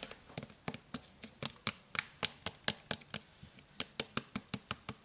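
Fingernails clicking and scratching on a plastic Head & Shoulders shampoo bottle: a quick, uneven run of sharp taps, about four or five a second.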